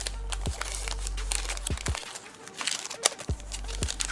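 Crinkling and rustling of a trading-card pack's foil wrapper being handled and opened, in irregular bursts.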